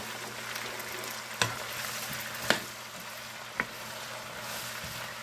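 Green beans and onions sizzling in a hot skillet just after about half a cup of water has been poured in, a steady hiss broken by three sharp clicks about a second apart.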